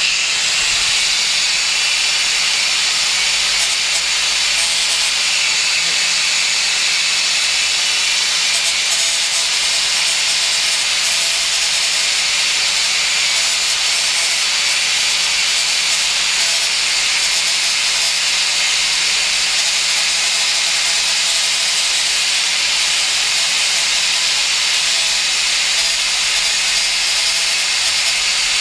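Angle grinder with a fibre grinding disc grinding down a stainless steel pipe: a loud, steady grinding noise over the motor's even hum.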